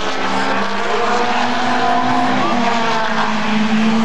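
Several late model race car engines running at speed together around a short oval, a steady, loud drone whose pitches drift up and down slightly as the cars circle.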